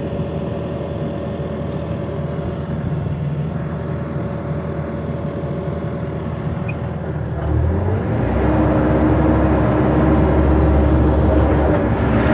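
A motor vehicle's engine running steadily, then about seven and a half seconds in it speeds up with a short rising pitch and settles into a louder, steady drone.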